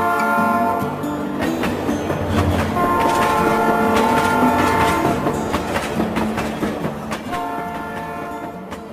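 A train horn sounding three long chord-like blasts, over wheels clattering on the rail joints.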